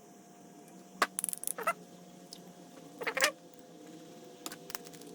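Small carburetor parts clicking and clattering as they are handled and fitted back together, in two short bursts about two seconds apart, over a faint steady hum.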